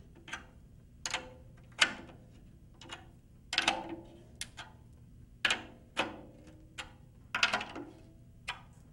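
A drum key clicking and clinking on the tension rods of a 12-inch Pearl tom as its lugs are tightened a little more, in short clusters of sharp clicks about every second, with the drumhead ringing faintly between them.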